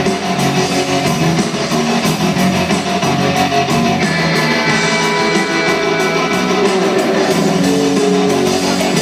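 Live rock band playing, electric guitar to the fore, heard from the crowd in a large arena.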